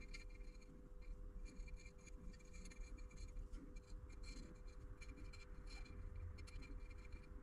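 Faint, short scratchy rustles from a fine paintbrush and fingertips working over an engine case cover while black paint is touched into its raised lettering, over a steady low hum.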